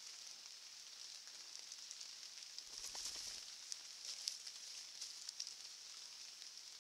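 Steady high hiss with scattered faint ticks, and a soft low thump about three seconds in as a black bear noses and brushes right against the trail camera.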